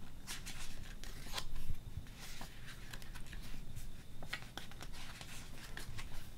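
Glossy pages of a K-pop album photobook being flipped by hand: an irregular string of short, crisp papery flicks and rustles.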